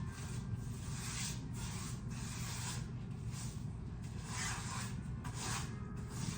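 Paint being brushed or rolled onto a wall: repeated rubbing, swishing strokes, roughly one or two a second, over a steady low hum.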